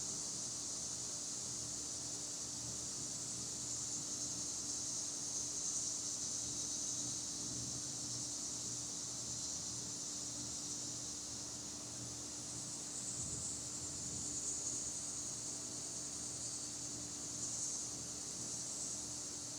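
Summer insects (cicadas or crickets) buzzing in a continuous high chorus that swells gently a few times, over a faint steady low hum.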